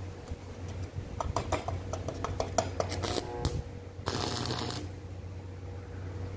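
Stick (arc) welding a stainless steel rod onto a wire barbecue grill: quick crackling clicks as the electrode is struck, then short bursts of arc sizzle, the longest lasting under a second just after four seconds in.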